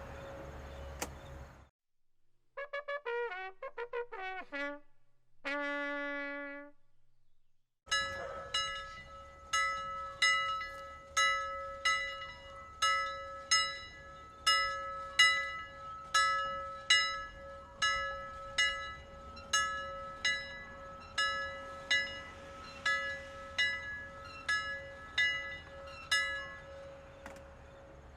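Sound effects one after another. First the end of a ringing bell tone. Then a descending brass 'wah-wah' phrase ending in a held low note, in the sad-trombone style. Then a bell-like tone struck about once a second for some twenty seconds, each strike ringing out over a steady tone.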